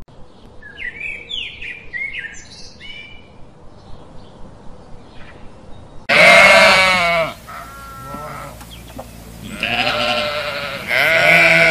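Small birds chirping briefly, then sheep bleating loudly in long wavering calls, three or four of them from about six seconds in.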